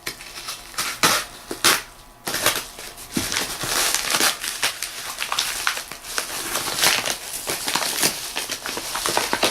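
Shipping packaging being torn and opened by hand: a few sharp rips and snaps, then from about two seconds in a continuous crinkling and crackling of the wrapping.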